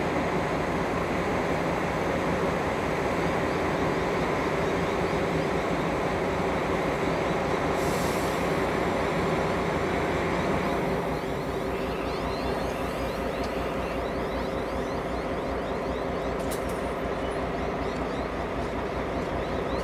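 Diesel locomotive 42103's EMD two-stroke V16 engine running steadily as the locomotive and its carriages move slowly along the track. The sound eases slightly about halfway through.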